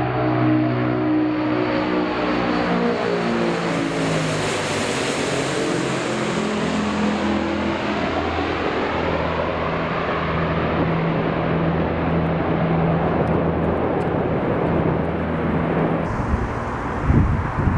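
Engine noise of a vehicle passing close by: its tones fall in pitch as a rushing noise swells and fades, then a steady low drone. About 16 seconds in the sound cuts abruptly to wind buffeting the microphone.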